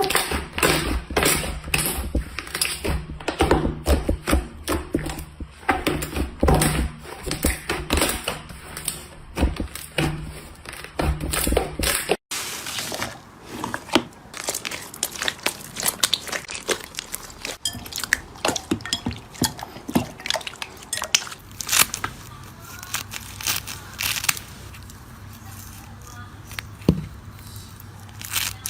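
Slime being squeezed and pressed by hand, giving a dense run of sticky pops and crackles. About twelve seconds in there is an abrupt cut, and after it the crackles come more sparsely.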